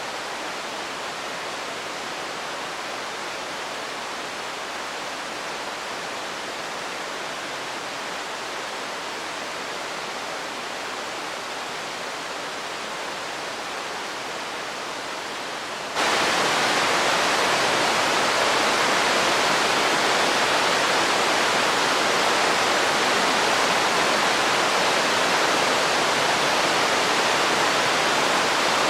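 Steady rush of fountain water splashing and falling. About halfway through it jumps abruptly to a louder, brighter rush.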